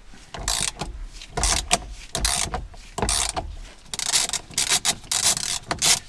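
A ratchet wrench clicking in a series of short strokes as it unscrews the steering wheel's center bolt through an M12 spline bit on an extension bar.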